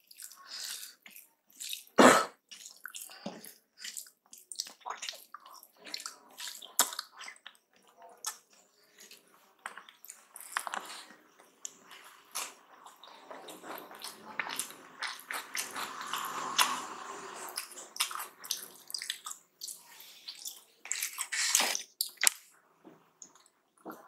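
Close-up wet eating sounds: chewing and mouth smacks on a mouthful of rice and potato keema, with fingers squishing rice on the plate. The short irregular smacks include a loud one about two seconds in, and they grow denser and noisier through the middle.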